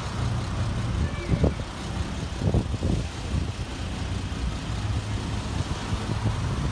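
1949 Chevrolet pickup's engine idling with a steady low rumble, plus a few brief low thumps.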